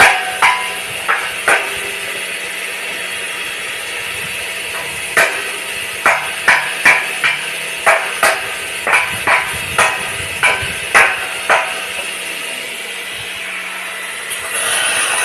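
Hammer striking steel, each blow with a short metallic ring: three blows in the first two seconds, a pause, then about fifteen quick blows in a run, over a steady low hum.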